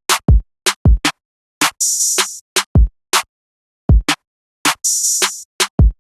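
Trap drum pattern played from a Maschine MK2: sparse, syncopated hits with silent gaps between them, several deep 808 bass hits whose pitch drops briefly, and twice a longer hissy high hit.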